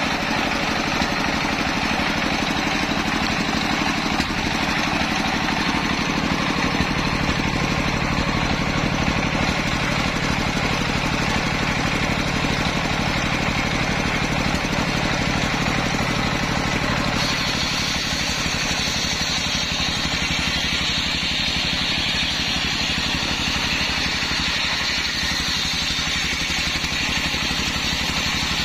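Stationary diesel engine running steadily, driving a belt-driven circular saw blade that spins with no log yet in the cut. About two-thirds of the way through a higher steady whine joins the engine.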